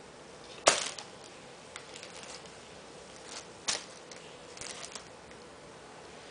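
A cat playing on a tile floor: two sharp knocks about three seconds apart, with lighter taps and scuffs between them.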